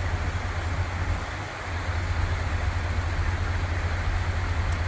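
Fast mountain creek rushing over rocks: a steady hiss of running water, with a low steady hum underneath.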